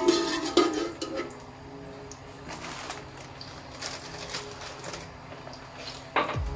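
Metal slotted spatula scraping and clattering against the base of a large aluminium pot while ghee and cardamom powder are stirred, loudest in the first second. After that it is quieter, with a few light clicks over a faint steady hum, and a sudden louder sound just before the end.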